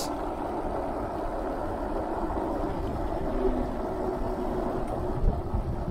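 Super73 S2 electric bike being ridden: steady rolling and rattle noise with a faint whine around the middle, and a brief knock a little past five seconds in.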